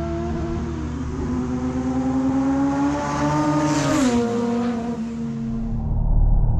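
A drag racing car's engine at full throttle, rising in pitch as it approaches and dropping sharply as it passes by about four seconds in. A low steady rumble follows near the end.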